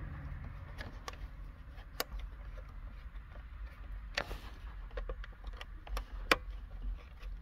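Small screwdriver turning the screws back into the plastic HDD access lid of a car navigation unit: a few sharp, scattered clicks and taps, the loudest about six seconds in, over a faint low rumble.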